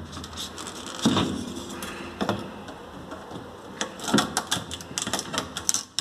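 A drawer of a DEXP RF-MN552DSY/BGI refrigerator being handled and slid: a run of clattering knocks and small clicks, with several louder knocks a second or two apart.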